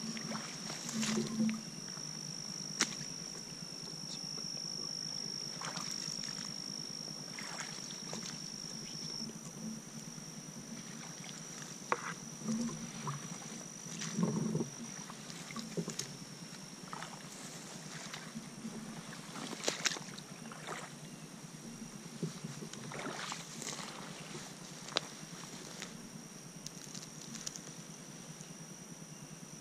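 Footsteps sloshing through shallow swamp water and wet marsh grass, irregular steps with grass and brush swishing against the legs.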